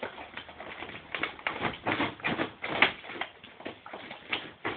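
A dog ripping and rustling a cardboard box and the plastic dog-food bag inside it: a quick, irregular run of scraping, tearing and crinkling noises.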